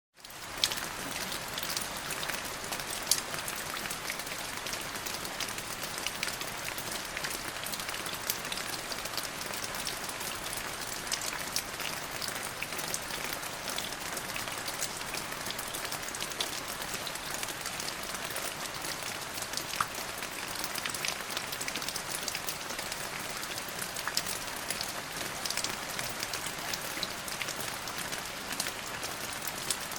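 Steady rain falling, with many individual drops hitting a surface as sharp pattering ticks over an even hiss.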